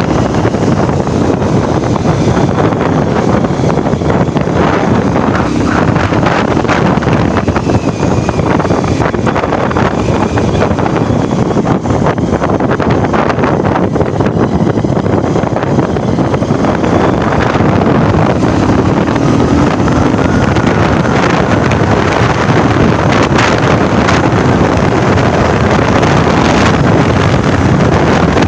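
Wind buffeting the microphone on a moving motorcycle, a loud steady rush with the engine running underneath.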